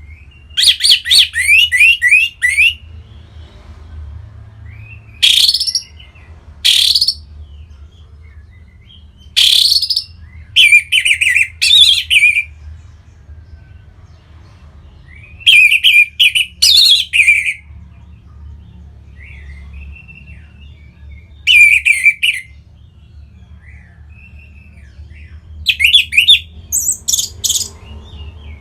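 Orange-headed thrush singing loud, varied phrases of one to two seconds each, with pauses of a few seconds between them. Some phrases are fast runs of repeated notes.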